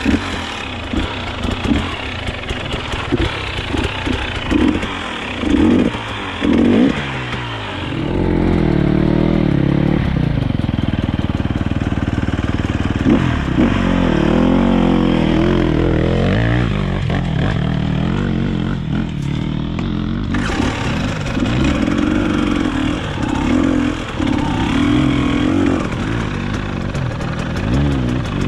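KTM enduro motorcycle engine working over rocky ground: a string of short throttle blips, then several seconds of steadier, louder running under load with the revs rising and falling, and another burst of blips near the end.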